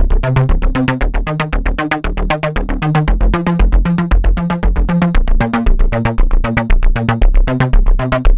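Electronic disco bass loop: a synthesizer bass line stepping between notes under a fast, steady beat.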